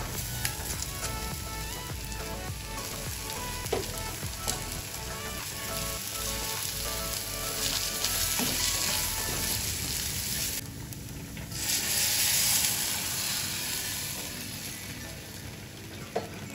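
Red lentils sizzling as they fry in hot oil with onion, green chilli and spices in a clay pot, stirred with a wooden spoon. The hiss breaks off briefly about eleven seconds in, comes back louder, then dies down as thin coconut milk is added.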